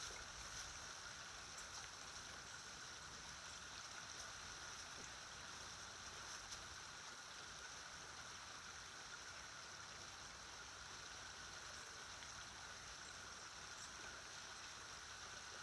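A small burn's water running: a faint, steady rushing and trickling.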